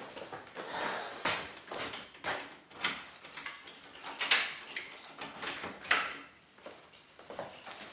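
Keys jangling and a door's lock and handle clicking and rattling in a run of irregular knocks and scrapes.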